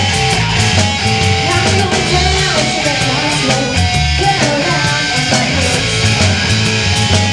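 Live rock band playing loudly, with an acoustic guitar and an electric guitar played through an amplifier.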